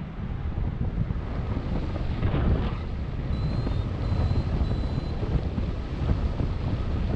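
Wind rushing over the camera microphone in flight under a paraglider: an uneven low rumble that swells in gusts, strongest about two and a half seconds in.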